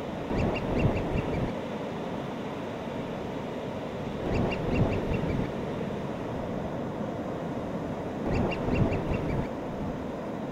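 Seabirds calling in short runs of quick, repeated notes, three runs about four seconds apart, over the steady wash of breaking surf.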